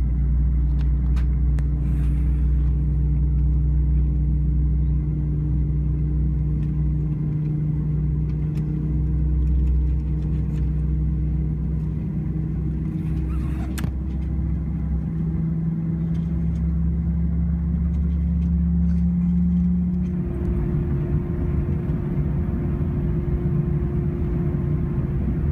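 Airbus A320 cabin noise while taxiing: a steady engine hum over a low rumble. There is a single click about halfway through, and about 20 s in the sound turns rougher with a higher hum.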